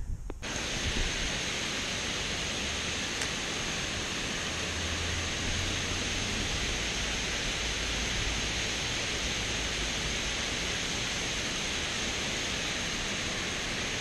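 Water pouring over a low dam's spillway: a steady, even rushing that starts suddenly about half a second in.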